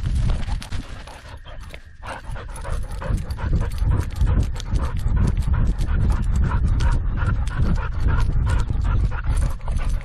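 Dog panting hard and fast after running, over a heavy low rumble.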